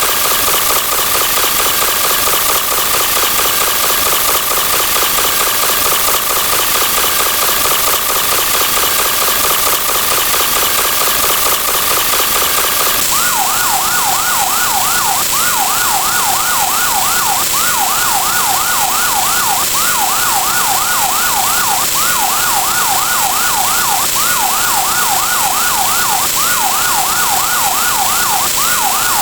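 A steady high tone over a constant hiss. About 13 seconds in, it gives way to an ambulance siren sound effect, its pitch sweeping rapidly up and down in repeated groups.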